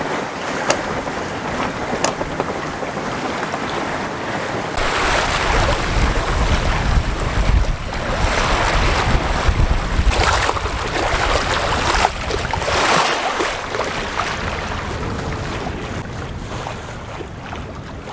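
Water rushing and splashing along a sailboat's hull as it sails with the engine off, with wind buffeting the microphone. The rush of water swells in surges through the middle.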